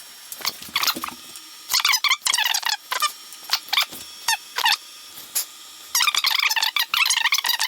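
Irregular bursts of high-pitched squeaking, many short wavering squeaks in a row, densest near the end.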